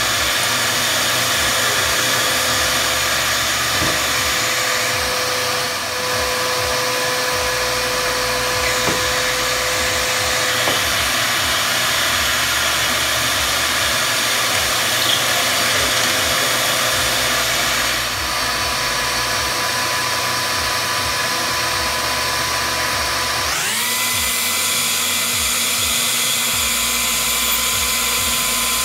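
A dust extractor hums steadily while a drill bores pocket holes through a pocket-hole jig into plywood. Near the end a rising whine sets in and holds at a higher pitch as a sander spins up and runs on the extraction hose.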